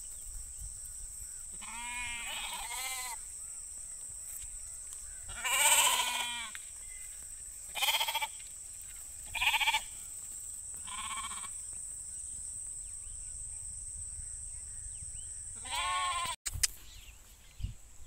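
Young hair sheep (lambs) in a small flock bleating: about six separate calls at uneven gaps, the loudest about six seconds in.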